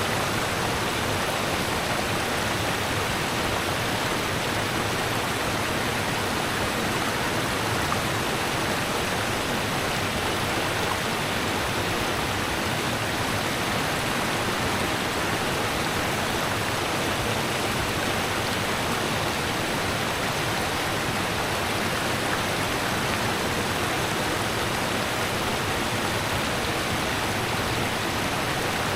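Rushing river water, a steady even rush with no let-up.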